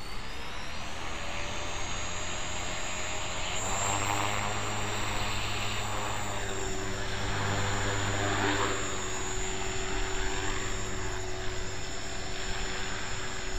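Electric HK450 RC helicopter spooling up, its motor whine rising through the first second or so. It then settles into a steady whine with a low rotor-blade hum as the helicopter hovers.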